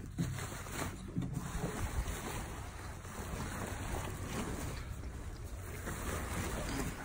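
Fabric car cover rustling and swishing as it is pulled off the car and bunched up by hand, close to the microphone.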